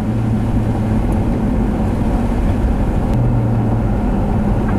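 Steady low rumble of a vehicle driving on a snow-covered highway: engine and road noise, with a low hum that fades about a second in and comes back near the end.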